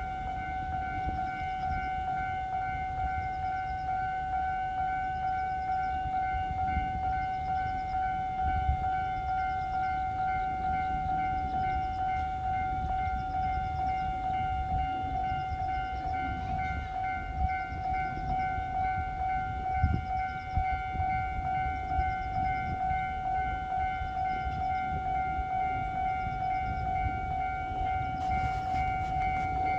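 Japanese level-crossing warning alarm ringing without a break, a single electronic pitch with overtones, over a low rumble.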